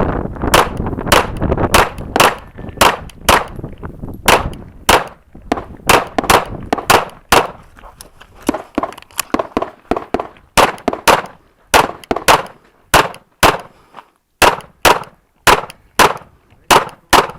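Canik TP9SF 9mm pistol firing a fast course of fire: dozens of sharp, loud shots, mostly in quick pairs and short strings, broken by brief pauses.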